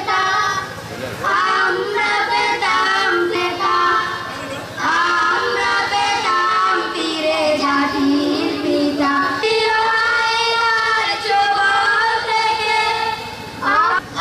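A high voice singing a melody in long, held notes that move in pitch, with music.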